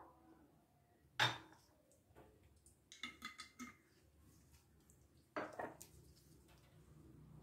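Metal spoon knocking and clinking against a glass mixing bowl: one sharp knock about a second in, a quick run of ringing clinks around three seconds, and another knock a couple of seconds later.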